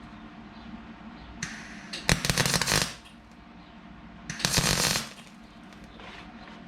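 MIG welder arcing in two short crackling bursts, each under a second, as it tacks thin steel rods of a fuel-gauge sender float arm together. The weld is not taking well on the mismatched rods.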